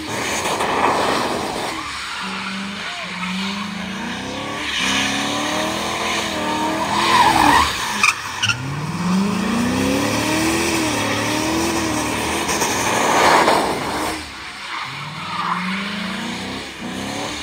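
A 2001 Mercury's V8 revs hard in repeated burnouts through a locked differential. Its pitch climbs and holds high several times over the rushing squeal of spinning rear tyres. Two sharp cracks come about halfway through.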